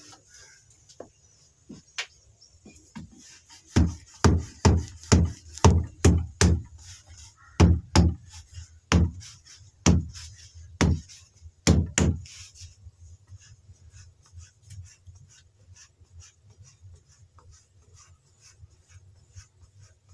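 Kashmiri kulcha dough being patted flat by hand on a wooden board: a run of about fourteen dull thumps over some eight seconds, then many faint, quick, light taps.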